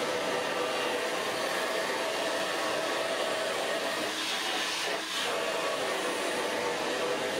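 Pink handheld hair dryer blowing on long hair: a steady rush of air over a motor hum, which dips briefly about five seconds in.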